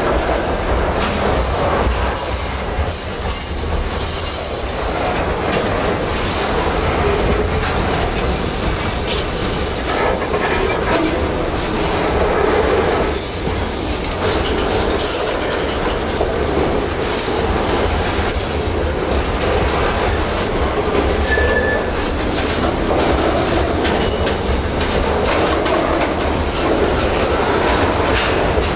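Container wagons of a long intermodal freight train rolling past close by: a steady rumble with the clickety-clack of wheels over the rail joints, and a short wheel squeal about three-quarters of the way through.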